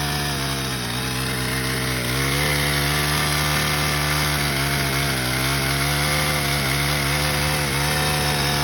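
Craftsman four-stroke small engine running at high speed with no oil in the crankcase, a steady engine hum whose speed sags slightly twice, about a second in and again midway.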